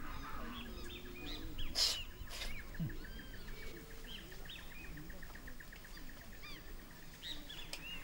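Outdoor wildlife ambience: birds chirping with short arched calls, and a steady fast ticking trill that starts about two and a half seconds in. Two sharp clicks sound around two seconds in.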